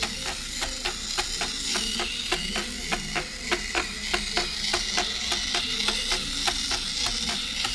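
Hexbug Spider remote-control robot walking, its small geared motor and plastic legs clicking evenly about five times a second over a high, faint hiss.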